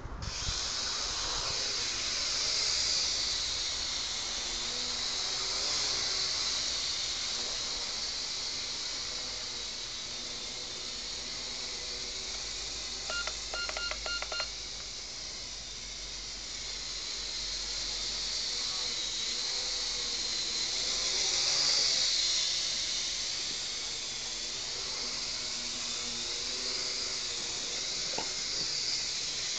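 Small toy quadcopter's motors and propellers whining high and steady, the pitch wavering as it flies. About halfway through comes a quick run of short electronic beeps.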